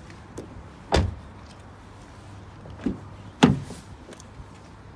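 Skoda Octavia hatchback's doors being handled: two loud door thuds, about a second in and about three and a half seconds in, with a lighter click just before the second.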